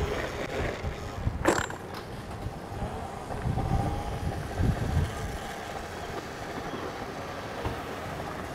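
Outdoor wind buffeting the microphone with an uneven low rumble, and a single sharp click about one and a half seconds in.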